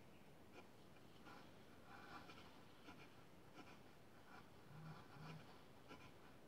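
Near silence, with faint, irregular soft ticks and rustles of a crochet hook pulling wool yarn through stitches while double crochets are worked.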